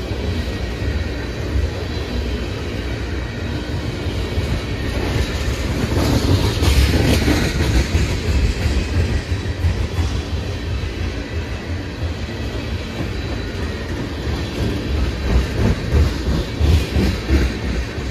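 Freight train rolling past, its wheels clacking over the rail joints in clusters about six seconds in and again near the end, over a steady low rumble.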